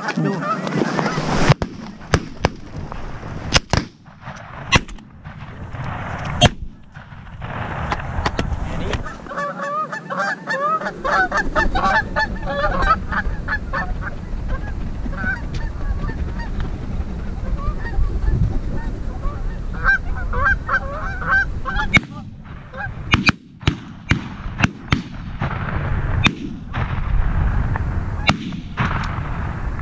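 A flock of Canada geese honking, many overlapping calls, busiest through the middle as the birds circle and drop in to land. Wind rumbles on the microphone throughout, with scattered sharp bumps.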